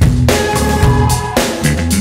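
Background music with a drum-kit beat.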